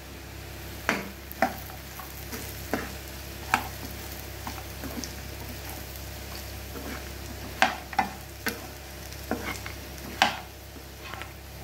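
Steel ladle stirring fried chickpeas into masala in a frying pan, with about nine sharp scrapes and knocks of the ladle against the pan over a low sizzle.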